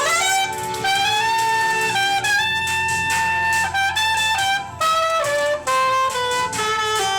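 Saxophone playing a melody. It opens with a quick upward slide into a long held high note, then moves through shorter stepped phrases that fall lower near the end.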